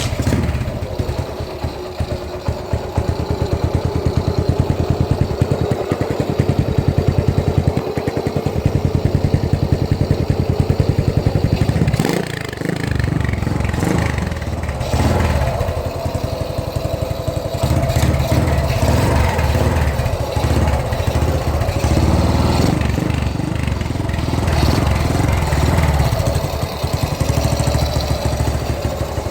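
Suzuki Shogun Pro 125 motorcycle engine running through an aftermarket HGM exhaust pipe. It comes in suddenly at the start and keeps up a steady, pulsing exhaust note, which changes a few times along the way.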